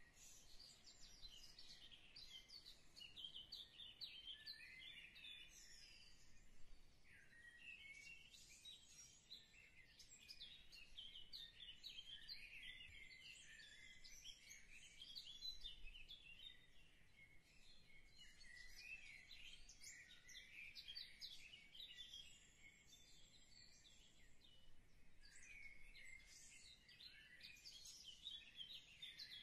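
Faint birdsong: many small birds chirping and twittering in quick, overlapping high calls.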